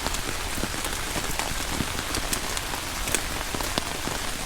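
Heavy rain falling steadily, with many individual drops tapping sharply close by.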